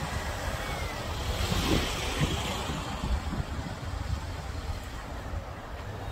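Outdoor background noise: wind rumbling and buffeting on the microphone over a steady hiss, with the hiss swelling briefly about two seconds in.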